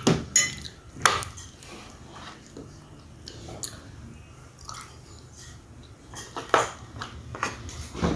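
Metal spoon and fork clinking against a ceramic plate while eating, with a few sharp clinks in the first second, quieter scraping between, and more clinks near the end.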